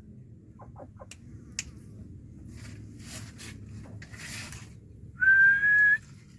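A person whistles one long, steady note that rises slightly in pitch about five seconds in. Before it there are a few faint clicks and some soft rustling.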